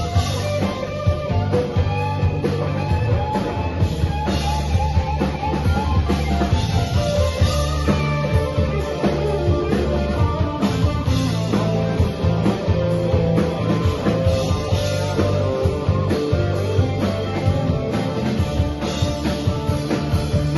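Live rock band playing: electric guitar, Roland stage keyboard and drum kit, loud and steady.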